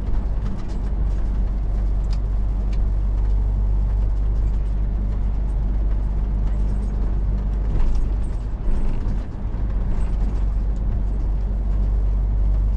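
Steady low drone of a MAN truck's diesel engine and road noise, heard inside the cab while driving, with a few light rattles and clicks from the cab.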